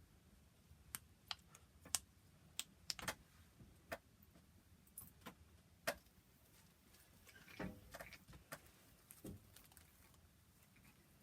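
A fidget toy being clicked: a dozen or so sharp, quiet clicks at uneven intervals, with short pauses between them.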